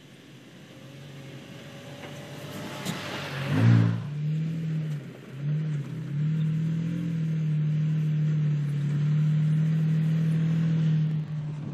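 2017 Toyota Tacoma TRD Pro's 3.5-litre V6 engine as the truck drives over rough grass. It grows louder and passes close with a rush of noise a little under four seconds in, then holds a steady engine note.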